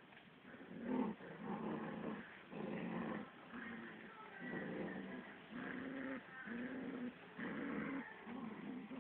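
Dog growling in a series of short pitched rumbles, about one a second.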